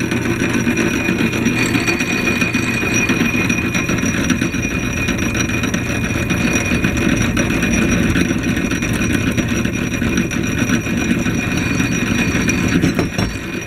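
A.D. Vance No. 12 drill press, driven by a 3/4 horsepower Emerson electric motor, running steadily with its twist bit cutting into a flat steel bar under cutting oil.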